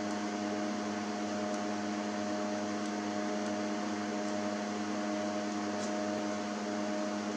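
Steady electrical hum and fan whir from the powered-up PDP-11 and bench test gear, with several constant tones and an even hiss. A few faint clicks sound over it.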